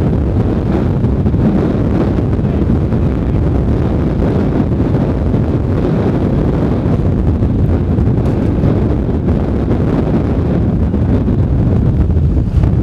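Strong wind blowing across the microphone: a loud, steady low rushing noise with no distinct events.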